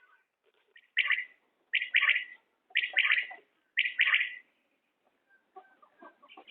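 Common quail calling: four similar short calls about a second apart, then a pause.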